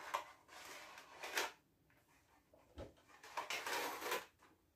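Handling of a cardboard Funko Pop box and its clear plastic insert as the box is opened and the insert with the figure is slid out: scraping and rustling of cardboard and plastic, with a soft knock a little before the middle and a longer scrape near the end.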